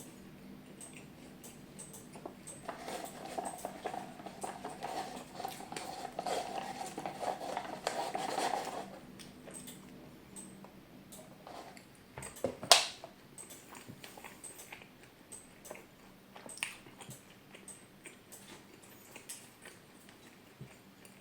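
Close-miked chewing and mouth sounds of someone eating. They are busiest through the first half, and one sharp click is heard about 13 seconds in.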